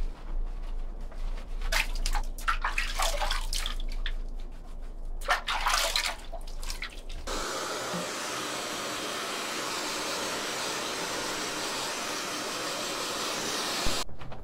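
Hands sloshing and splashing soapy water in a plastic basin while scrubbing a wet poodle, in several short bursts. About seven seconds in, a handheld hair dryer blows steadily, then cuts off near the end.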